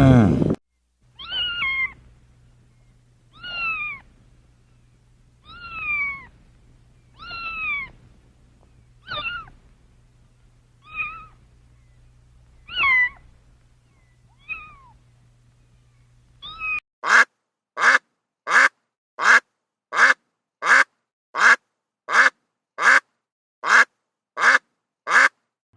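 Domestic cat meowing, about nine separate calls a couple of seconds apart, each falling in pitch, over a low steady hum. About two-thirds of the way in this gives way to a quick run of a dozen short, loud, evenly spaced animal calls.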